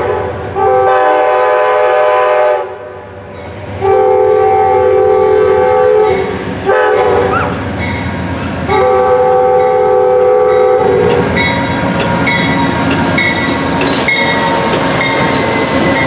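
Amtrak GE Genesis diesel locomotive sounding its chime horn for a grade crossing in the standard long, long, short, long pattern. After the last blast, about eleven seconds in, the train passes close with a steady rumble and wheels clacking over the rail joints.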